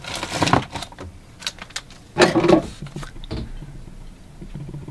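Rustling and handling noises as a chocolate bar is brought out and held up, with scattered light clicks and knocks and a louder rustle about two seconds in.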